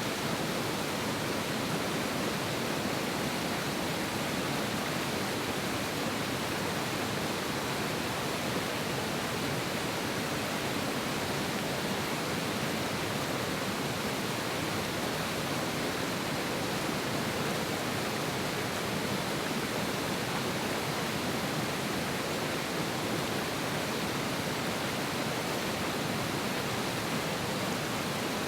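Mountain river rushing strongly over rocks, a steady, unbroken roar of water.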